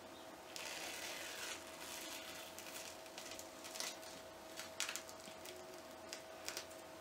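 GlamGlow GravityMud glitter peel-off mask being peeled from the skin: a faint sticky tearing, then a few sharp little crackles as the film pulls away.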